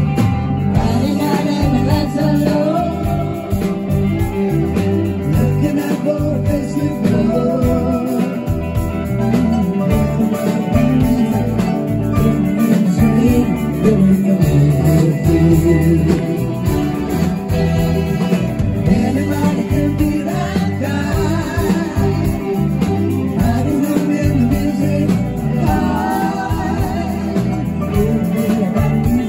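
Live rock band playing with electric guitars and a lead vocal.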